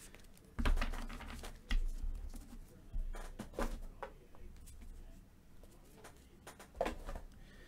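Trading cards and packs being handled on a tabletop: several knocks and thumps as things are set down, with light rustling in between.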